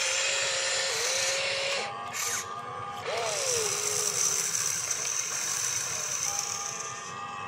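Radio-controlled excavator's small electric motors and gears whining as the cab slews and the boom swings, the pitch rising and falling as the motors speed up and slow down.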